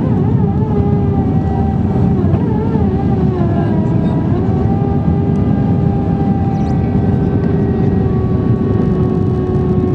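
Airbus A320 cabin noise on approach: a steady roar of airflow and engines, with a whining engine tone whose pitch wavers and dips a few seconds in as thrust is adjusted, then holds steady.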